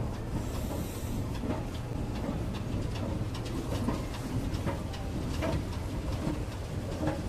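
Busy city background: a steady low hum with many small scattered clicks and knocks, and a brief hiss about half a second in.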